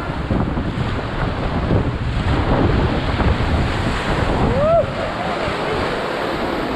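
Rushing whitewater with wind buffeting the microphone, a steady dense roar. A short rising-and-falling call cuts through about four and a half seconds in.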